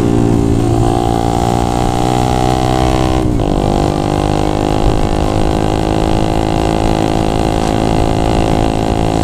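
Yamaha Jupiter MX four-stroke single, bored up to 177cc, running under part throttle while riding. About three seconds in the sound dips briefly and the pitch drops, as at a gear change, then it runs steadily. The engine is held back from full throttle because it is freshly built.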